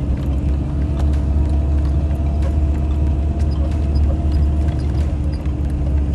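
Off-road vehicle driving on a snowy trail: a steady low engine and drivetrain rumble with a constant hum and small scattered clicks and rattles.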